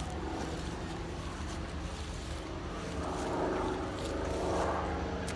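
Distant jet aircraft roar over a steady low rumble, swelling about three seconds in and easing off near the end.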